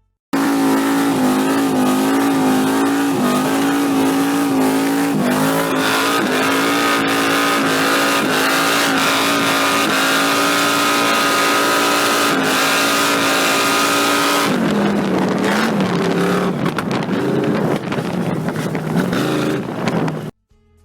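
Chrysler 360 V8 stroked to 408 cubic inches in a VR Commodore skid car, held at steady high revs during a burnout with tyres squealing. Near the end the revs drop and rise unevenly, then the sound cuts off suddenly.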